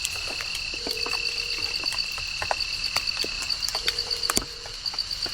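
An outdoor chorus of frogs and insects: a steady, fast-pulsing high trill, another high steady tone, and a low call about a second long repeating every second and a half. Over it come irregular sharp taps, like water dripping onto leaves.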